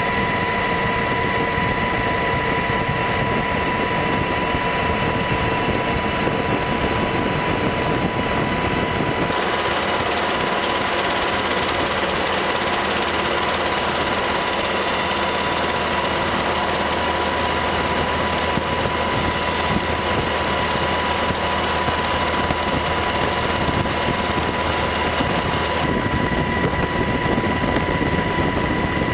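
Steady, loud noise of a helicopter in flight, with a high, even whine running through it. The noise changes character abruptly about nine seconds in and again near the end.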